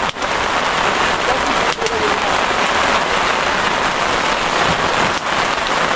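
Steady rain falling on a tarp shelter roof, an even hiss of drops.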